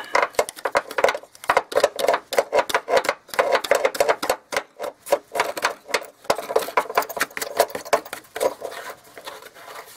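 Rapid, irregular clicking and rattling as plastic retainers are twisted by hand onto the threads of steel mounting bolts, several clicks a second, thinning out near the end.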